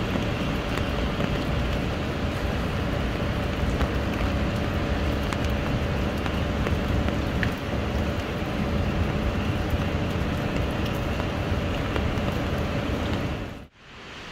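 Steady rain falling on wet pavement and foliage, with a low, steady rumble underneath. Near the end it cuts off suddenly, and a quieter, even hiss follows.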